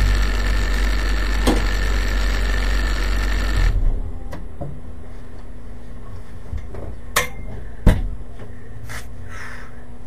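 A vehicle's engine running at idle, switched off about four seconds in, followed by a few sharp knocks and clicks.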